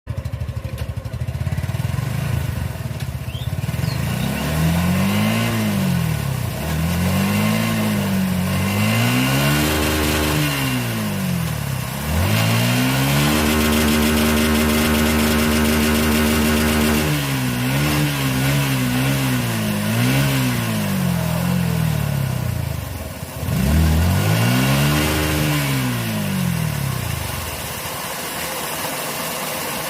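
Suzuki Gixxer 155's single-cylinder 155 cc four-stroke engine idling, then revved up and down repeatedly in short blips, with one longer held rev in the middle. It drops back to a steady idle near the end.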